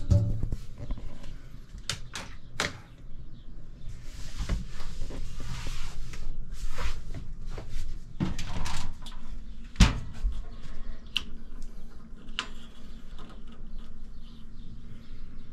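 Scattered clicks and knocks from handling an RV's Wedgewood Vision propane range: the oven door and its control knobs, over a steady low hum. The sharpest knock comes about ten seconds in.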